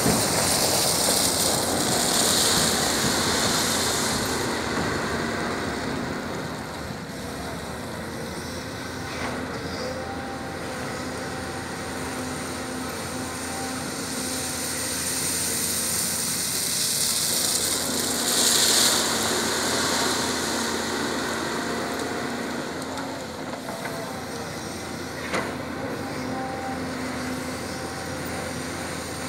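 Volvo EC210B excavator's diesel engine running steadily under working load with its hydraulics. Loose crushed stone pours from the bucket with a rushing hiss near the start, a similar louder spell comes again later, and a few sharp knocks of stone are heard.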